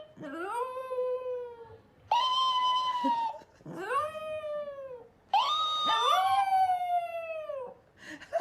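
A pet animal, cat or dog, giving four long drawn-out howling calls, each rising and then sliding down in pitch, with short pauses between them.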